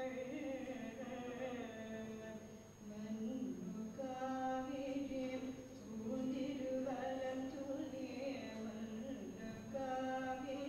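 Female voices singing a Hindu devotional hymn, unaccompanied, in long held notes that bend up and down in phrases a few seconds long.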